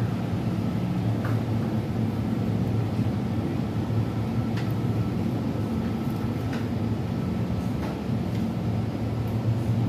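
Steady low hum of refrigeration from the glass-door freezer cabinets, with a faint thin whine above it and a few light clicks.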